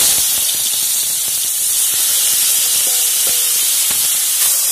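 Diced raw mango frying in hot oil with panch phoron in a metal kadai, sizzling loudly and steadily. Two light clinks of the metal spatula on the pan come about three seconds in.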